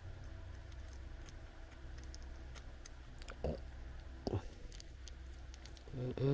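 Small tools handling watch parts on a work surface, with scattered light clicks and taps and two louder knocks about three and a half and four seconds in, over a low steady hum.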